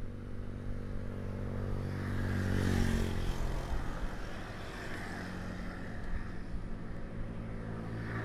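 A motor-vehicle engine running steadily in the background, swelling louder about two to three seconds in and then easing off.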